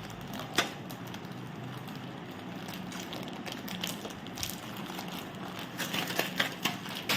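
Scattered crackles and crunches of Kurkure snacks being bitten and their plastic packets rustled, over a steady low hum. The crackles come more often in the second half.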